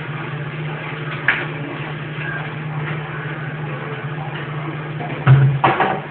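Items being handled and moved about in a refrigerator, over a steady low hum: a single knock about a second in and a short burst of clattering near the end.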